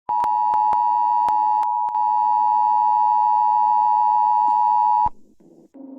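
Emergency Alert System two-tone attention signal (two steady tones near 850 and 960 Hz sounded together) blaring for about five seconds, broken once briefly near the two-second mark, with a few sharp clicks over it early on, then cutting off suddenly.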